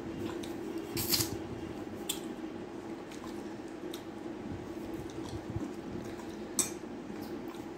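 Eating by hand from a stainless steel plate: fingers squishing and mixing rice with runny dal, with a few sharp clicks of fingers against the steel plate, about a second in and again near the end, over a steady low hum.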